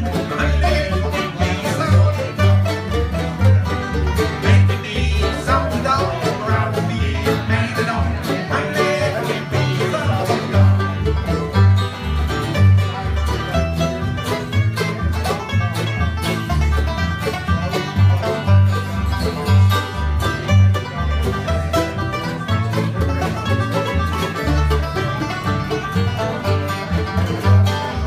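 Bluegrass band playing an instrumental break on banjo, mandolin, acoustic guitar and upright bass, with the banjo prominent and the bass plucking a steady pulse of low notes.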